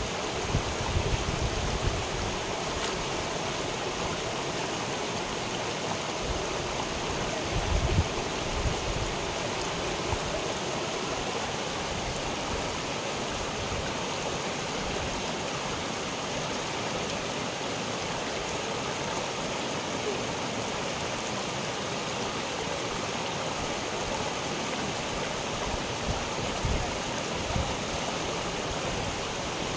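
Shallow rocky stream rushing steadily over stones and a small cascade. A few brief low rumbles come through, about eight seconds in and again near the end.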